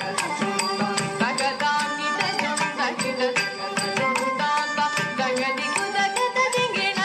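Carnatic dance music for Bharatanatyam: a melody of held and sliding notes over a quick, dense run of percussion strokes.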